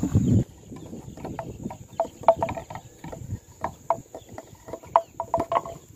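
Steady high-pitched insect buzz from the marsh, with many short, irregular bird call notes over it. There is a brief low rumble in the first half second.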